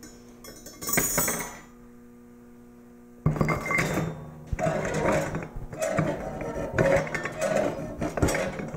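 Steel coil spring and square steel tubing clanking and scraping: a short jingle about a second in as the spring goes onto the tube. From about three seconds in comes a steady run of metal-on-metal scraping and knocks with repeated surges, as the inner square tube slides down inside the outer one and is pushed against the spring. A faint steady hum lies underneath.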